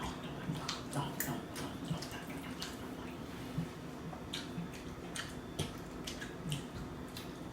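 Close-up mukbang eating sounds: chewing and lip-smacking, wet mouth clicks at irregular intervals with a few soft low thuds.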